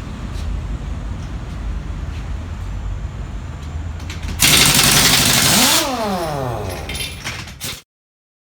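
Semi truck's diesel engine idling with a low rumble, then a loud hiss of air from the air brakes for about a second and a half, followed by the engine winding down in pitch as it is shut off.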